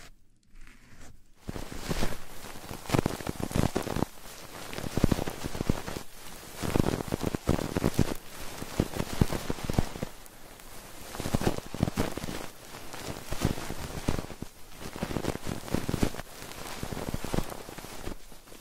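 Close-miked ASMR trigger sounds: dense, irregular scratching, rustling and crackling right on the microphone, starting about a second in.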